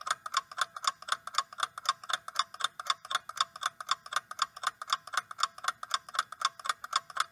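Clock-ticking sound effect marking a countdown timer: rapid, even ticks, about four a second.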